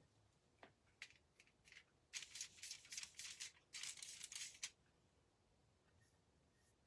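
Paintbrush stroking and scrubbing on a surface: a few light ticks, then two bursts of quick scratchy strokes about two and nearly four seconds in.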